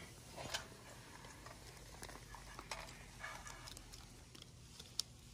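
Quiet outdoor background with a low steady hum and scattered faint clicks and taps, and one sharper click about five seconds in.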